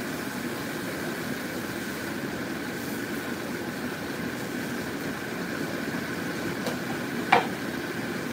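Pot of soup at a rolling boil, giving a steady bubbling rumble. A single sharp click about seven seconds in.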